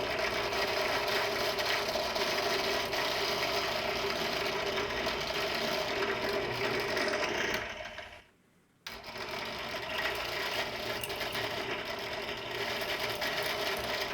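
Power drill running steadily as it drills out screw holes with a tap's matching drill bit, enlarging them for bigger screws. It stops for about a second just past halfway, then runs again.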